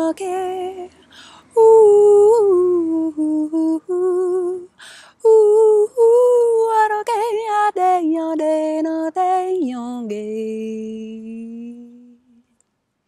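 A woman's voice chanting light language: wordless syllables sung in short phrases on held notes, with a quick warble partway through. It ends on a long, lower held note that fades out near the end.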